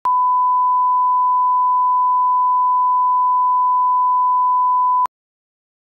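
A 1 kHz line-up test tone, the steady single-pitch beep that goes with television colour bars. It holds for about five seconds, then cuts off suddenly.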